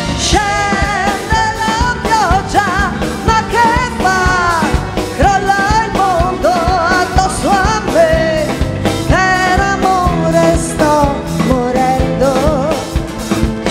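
A woman sings lead into a microphone over a live rock band: electric bass, acoustic guitar and drum kit, with a steady drum beat under the melody.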